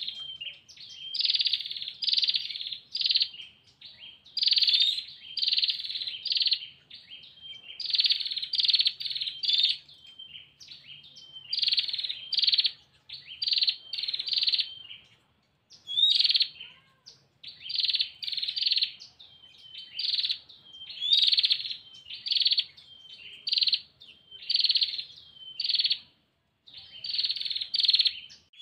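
Female prinia (prenjak) giving its rapid, dry trilling call in repeated bursts of a few quick notes every second or two, with short thin notes between them; this is the call a female uses to draw a male.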